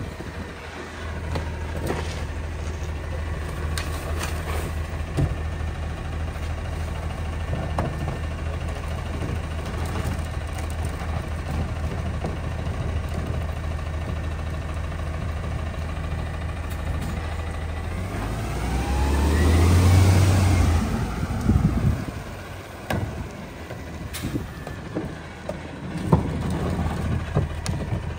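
Rear-loader garbage truck's diesel engine idling steadily, then revving up and back down about two-thirds of the way through. Scattered clanks and knocks sound over it.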